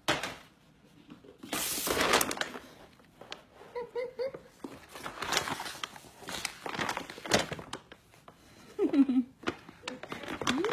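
Domestic cat snoring in its sleep: a few noisy breaths a couple of seconds apart.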